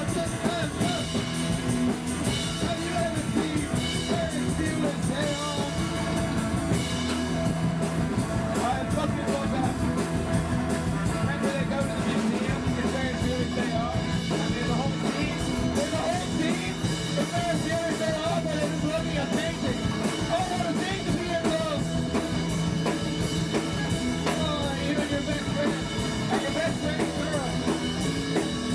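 Live rock band playing a song: drum kit, bass and a singing voice.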